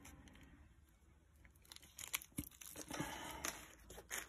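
Packaging being handled: irregular crinkling and rustling of plastic bags and cardboard as parts are rummaged from a box. It starts about two seconds in and is busiest around three seconds.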